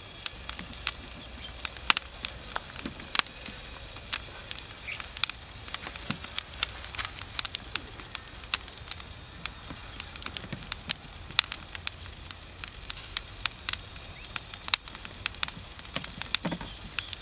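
Charcoal fire under a spit-roasting whole pig crackling and popping irregularly, the sign of fat and juices dripping from the cooking meat onto the hot embers.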